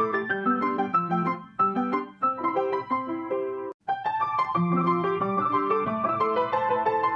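Piano music: a steady run of struck notes that breaks off for a moment a little before four seconds in, then carries on.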